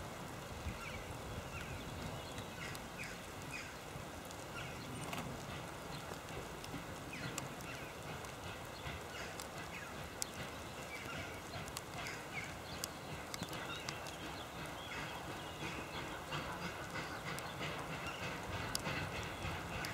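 Distant PKP Ol49 steam locomotive pulling away with its train, its exhaust chuffing, growing a little louder in the last few seconds.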